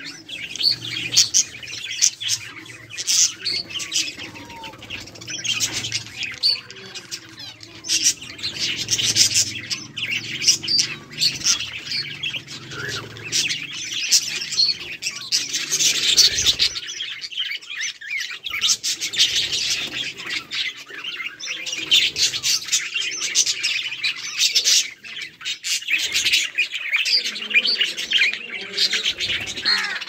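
A flock of budgerigars chattering together: a dense, continuous mix of many overlapping chirps and warbles.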